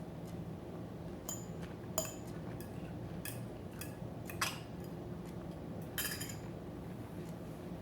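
Cutlery clinking against a plate during a meal: several separate sharp clicks a second or so apart, the loudest about two seconds in and again near four and a half and six seconds.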